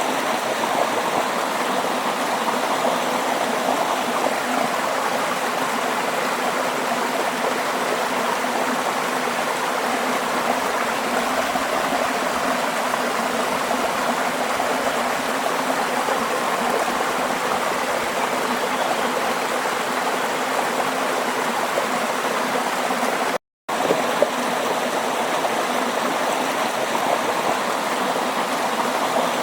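Steady rush and gurgle of running water, as of a stream, unbroken except for a brief cut to silence about three-quarters of the way through.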